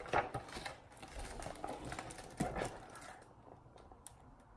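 A picture book's page being turned and the book handled: paper rustling with a few soft knocks, near the start and again about two and a half seconds in, then quieter.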